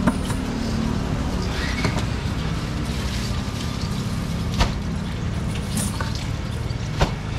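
Steady low engine hum, broken by short sharp knocks near the start, about four and a half seconds in, and about seven seconds in.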